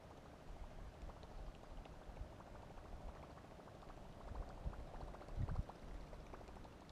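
Faint water lapping and gurgling against a boat hull, with small irregular clicks and a few low knocks about five seconds in.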